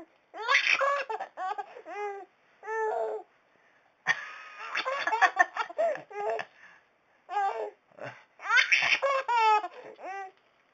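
A baby of about five and a half months laughing in repeated runs of high-pitched bursts, with short pauses between them.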